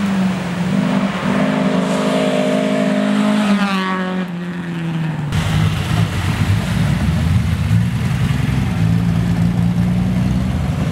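Classic rally car engine running hard at high revs, its pitch falling about four seconds in. About five seconds in the sound changes abruptly to a lower engine note over a deep, noisy rumble.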